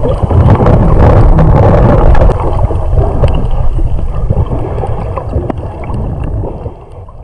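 Muffled underwater water noise picked up by a GoPro in its housing: a heavy low rumble with scattered faint clicks. It fades out over the last few seconds.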